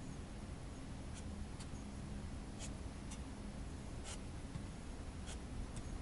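A plastic engine-cooling fan, a 6.4 Ford Super Duty fan on a Cummins clutch, turned slowly by hand. There is faint scraping and about seven light, irregularly spaced ticks as the blades pass a wooden straightedge to check that each blade sits at the same spacing.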